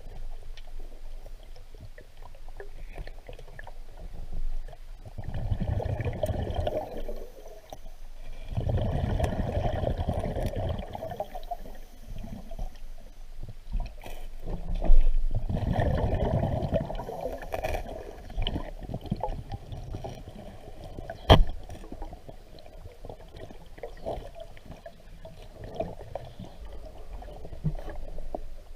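Water sloshing and gurgling around a small boat, swelling up three times for a few seconds each, with one sharp knock about twenty-one seconds in.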